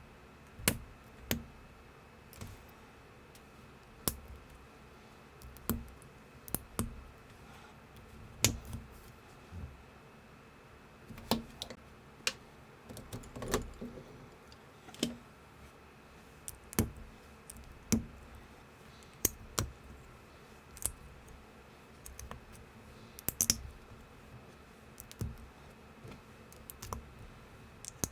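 LEGO-compatible plastic bricks clicking and snapping together as pieces are handled and pressed on. The clicks come at irregular intervals, one every half second to two seconds, over a faint steady hum.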